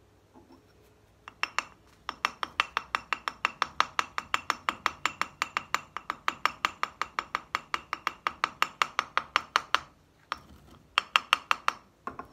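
Steel pack-carburizing container being tapped quickly and evenly, about five ringing metallic taps a second, to settle the carbon packing around the parts inside. The tapping stops briefly near ten seconds, then comes back in a short run.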